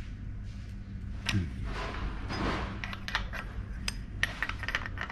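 Spanner clinking and knocking against metal hose fittings on an engine as they are tightened: a run of short sharp metallic clicks, busiest in the second half, over a low steady hum.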